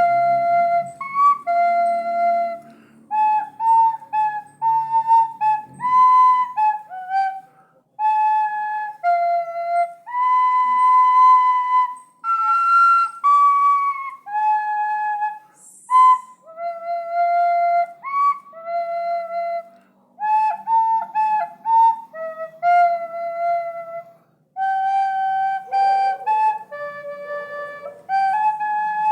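Flute playing a slow melody solo, with held notes and short slides between them. There is faint low accompaniment under it at the start and again near the end.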